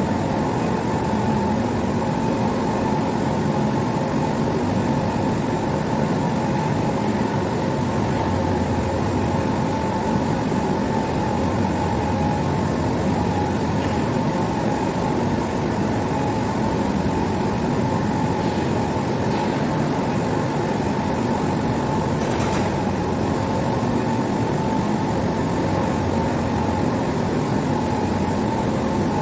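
Steady industrial machinery running, a dense even rumble with a constant high whine over it and a few faint ticks.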